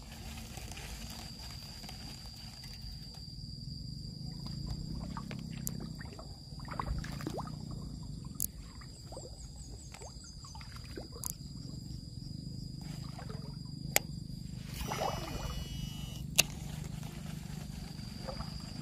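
Quiet outdoor ambience: a steady high-pitched insect drone over a low rumble, broken by a few sharp clicks. A brief warbling bird call comes about fifteen seconds in.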